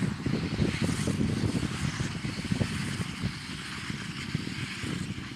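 Fendt 724 tractor running with a New Holland BB930A big square baler in work, heard as an uneven low rumble with a steady hiss over it.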